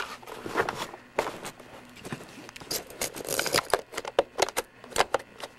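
Plastic clicks and scrapes of a converted Li-ion battery pack being slid and fitted onto the battery mount of a VHS-C camcorder, with handling knocks on the camcorder body. The clicks come irregularly, with a longer scraping slide a little past halfway.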